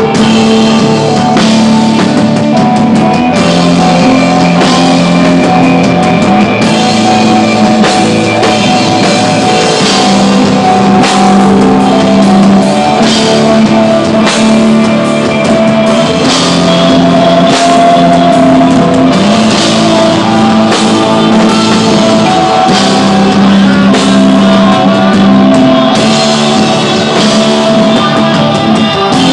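Rock band playing live: electric guitar and bass holding long notes that change every few seconds over a drum kit with frequent cymbal hits, loud.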